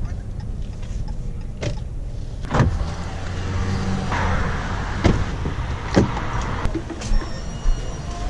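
Pickup truck cab: a steady low engine and road rumble, with several sharp clicks and knocks. About four seconds in, the door unlatches and swings open, letting in a hiss of outdoor noise for a couple of seconds.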